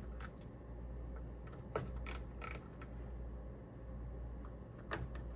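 Torque screwdriver tightening small Torx screws on a RAM cooling block, giving a few scattered sharp clicks over a steady low hum.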